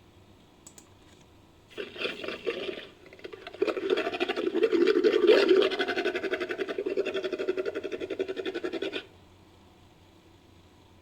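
Made-up creature growl for a Daeodon–Hyaenodon hybrid, built from edited animal sound effects: a short call about two seconds in, then a longer, rapidly pulsing growl of about five seconds that cuts off abruptly.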